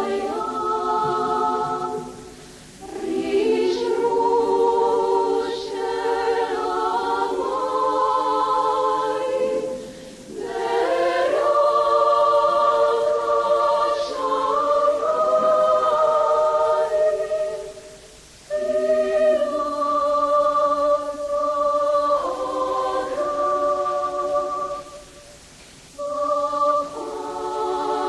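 A choir singing slow, sustained chords in several long phrases, with brief pauses between them.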